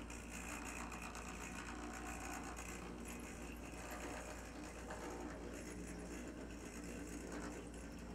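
HO-scale brass model of a Northern Pacific Z-7 Challenger steam locomotive running along its track, with the steady mechanical whir of its can motor and drive.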